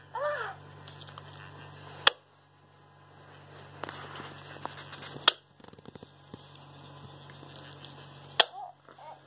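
Hatchimals toy pecking at the inside of its plastic egg shell: three single sharp taps about three seconds apart, with a brief run of fast small ticks after the second.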